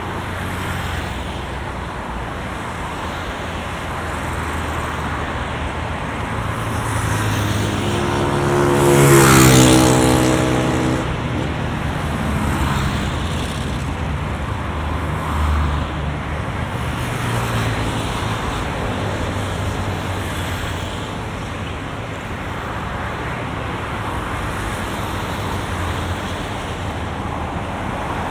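Steady road traffic going by, with one motor vehicle passing close about nine seconds in. This pass-by is the loudest moment, and its engine note drops in pitch as it goes past.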